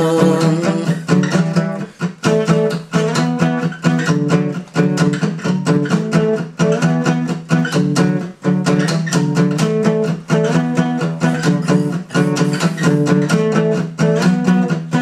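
Instrumental break in a song: strummed guitar playing repeated chords with a steady rhythm.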